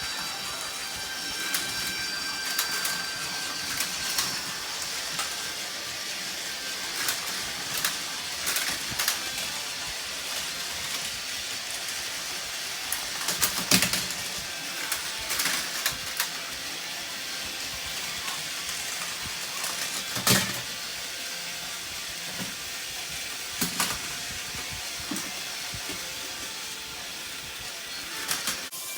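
Battery-powered Plarail toy trains running on plastic track: a steady high whirring with a few sharp clacks.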